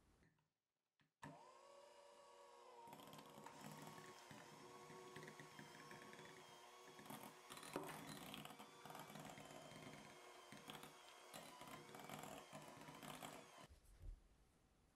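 Electric hand mixer beating cream cheese in a glass bowl: a steady motor whine with the churning of the beaters and a few clicks. It starts about a second in and stops shortly before the end.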